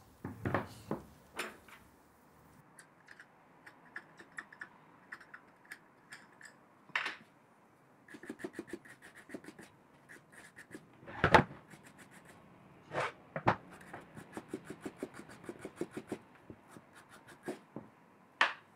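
Scraping and rubbing at old packed dirt on the underside of a small antique lathe's cross slide, in runs of quick scratchy strokes. Several sharp knocks of the metal part against the wooden workbench come through it, the loudest about halfway through.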